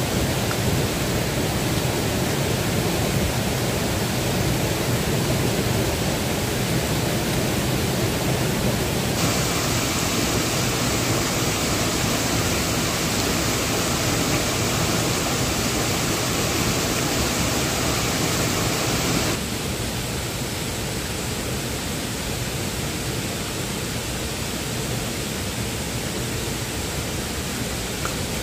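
Rushing water of a mountain stream and small rocky waterfall, a steady loud hiss. About nine seconds in it abruptly turns brighter and hissier. About nineteen seconds in it drops to a quieter, duller rush.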